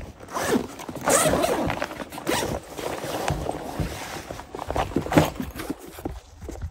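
A zipper on a fabric gear bag being pulled several times in short rasps, with rustling as the bag and a boot are handled.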